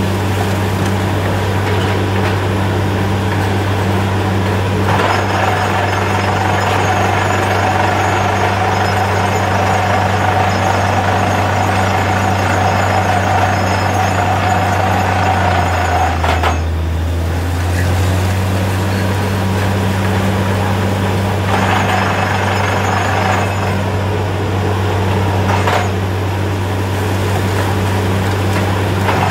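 Truck-mounted borewell drilling rig running steadily under load, its engine giving a deep constant drone. A harsher rattling hiss from the drilling comes in about five seconds in and stops just past the middle, when the engine note briefly drops lower. It returns for a few seconds later on.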